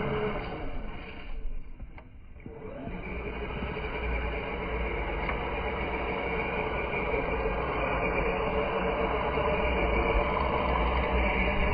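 Traxxas X-Maxx electric RC monster truck's brushless motor and drivetrain running as it drives through snow. It eases off briefly about two seconds in, then picks back up and runs steadily.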